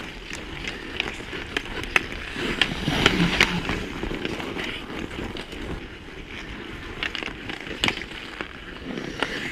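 Ice hockey skates scraping and carving across the ice, with sharp clacks of sticks and puck scattered through it; the scraping grows louder with a flurry of clacks about three seconds in, and one more sharp crack comes near the end.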